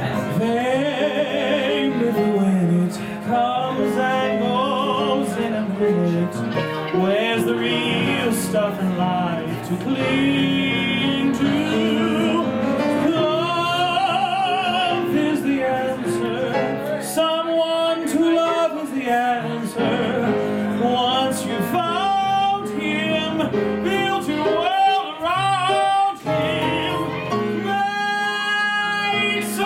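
Solo singing with piano accompaniment in a comic cabaret number; the voice glides and swoops up and down in pitch and wavers on held notes, without recognizable words.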